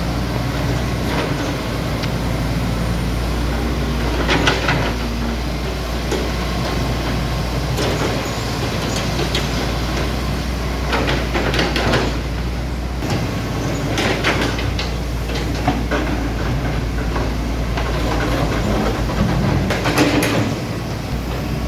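Hitachi 110 hydraulic excavator's diesel engine running steadily, with a string of metallic clanks and knocks from the machine working, a few seconds apart.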